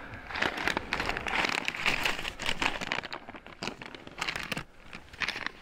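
Crinkling and rustling of an instant-pasta packet being handled, a dense crackle for the first few seconds, then scattered lighter rustles and clicks.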